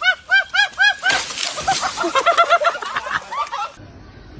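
Rapid, high-pitched laughter, about five bursts a second, then a loud stretch of rough noise with laughter over it that cuts off abruptly shortly before the end.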